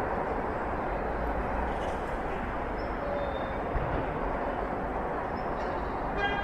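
City backyard ambience: a steady hum of distant street traffic, with a few faint, short, high chirps and one brief click a little past halfway.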